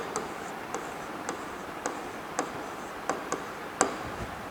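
About eight sharp, uneven taps and clicks of a pen striking a writing surface while writing.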